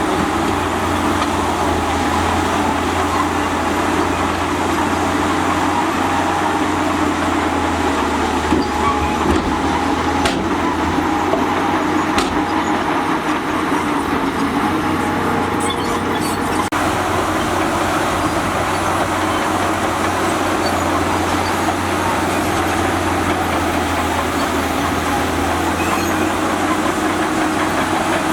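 Heavy diesel earthmoving machinery running steadily under load.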